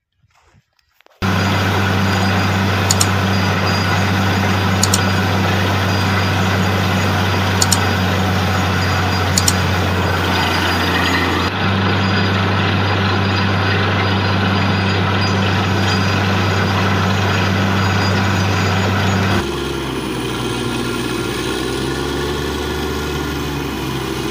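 Truck-mounted borewell drilling rig running: a steady loud engine and compressor hum under a hiss of compressed air blowing rock cuttings and water out of the bore, with a few sharp clicks in the first half. The sound shifts abruptly twice, about halfway through and near the end.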